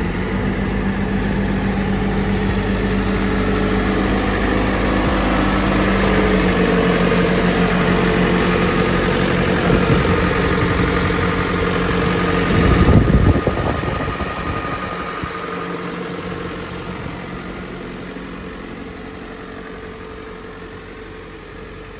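New Holland B95 backhoe loader's diesel engine running steadily, its note shifting slightly about six seconds in. A brief louder burst comes a little past halfway, after which the engine sound grows gradually quieter.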